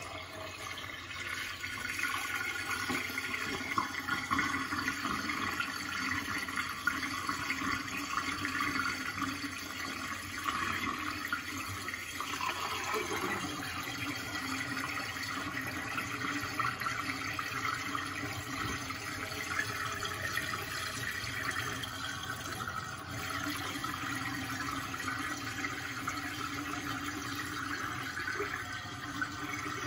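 Water swirling down the drains of a stainless steel double kitchen sink, a steady rushing of draining water.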